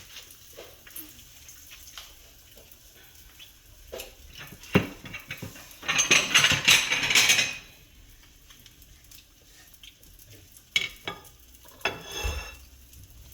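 Kitchen utensils clinking and knocking against dishes and a pan, with one loud knock about five seconds in. About six seconds in comes a louder rustling, scraping burst that lasts about a second and a half, and a few more clinks follow near the end.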